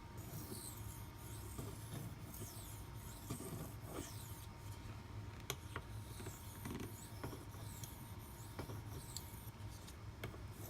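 A Maxamet-steel knife blade stroked along a 1500-grit CBN waterstone for a final sharpening pass: repeated faint, high scraping swishes, with a few light clicks.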